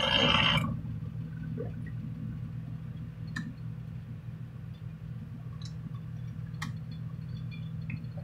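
A vintage Sunbeam stand mixer's loud running cuts off sharply a little way in. A steady low hum follows, with a few faint clicks as the mixer head is handled and tilted up.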